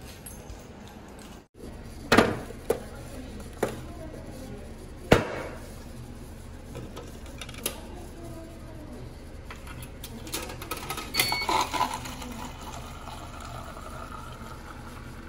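A coin-operated drink dispenser in use: several sharp knocks and clicks as a plastic cup is set under the spout and coins go in, a short beep about eleven seconds in, then the drink pouring into the plastic cup.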